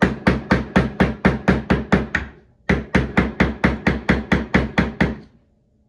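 Quick, even hammer taps on the handle of a flathead screwdriver, about four a second, in two runs of about ten with a short pause between them. The screwdriver is being driven between a leaking brass air-fitting cartridge and an Air Lift Performance air-suspension manifold to pry the cartridge out.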